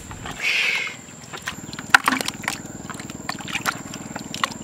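Water splashing and sloshing in a plastic tub as a freshly caught eel is handled over it. A noisy splash comes about half a second in, then a run of sharp, irregular splashes and drips.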